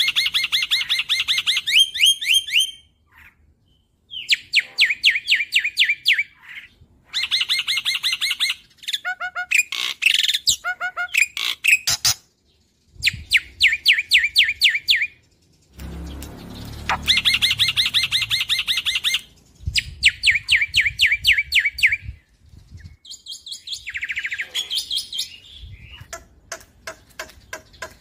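Black-winged myna (jalak putih) singing loudly: fast runs of sharp, repeated chattering notes, many a second, in phrases of two to four seconds with short breaks between them.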